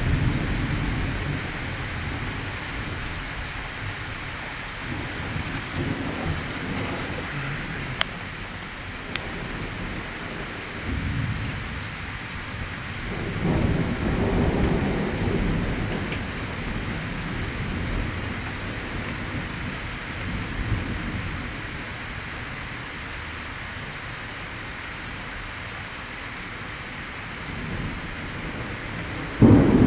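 Thunderstorm: steady heavy rain hissing, with several low rolls of thunder rising and fading, the longest about halfway through. Just before the end a sudden, much louder thunderclap breaks out, from a lightning strike close by.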